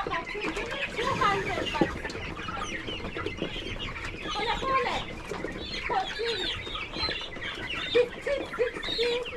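A flock of three-month-old chickens clucking and calling, many short calls overlapping, with a few sharp taps among them.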